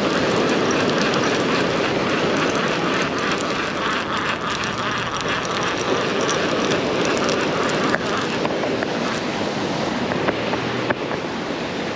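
Steady rush of ocean surf with wind on the microphone, with fine, rapid ticking over it throughout.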